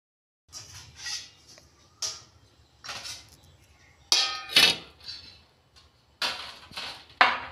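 Stainless steel plates and bowls clattering and clinking as they are picked up and set down on a table: a series of sharp metallic knocks, one plate ringing briefly about four seconds in.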